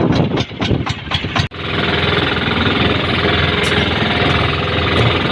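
An engine running with a rapid, even knock, about four beats a second. About a second and a half in, it cuts suddenly to a steadier, denser engine sound.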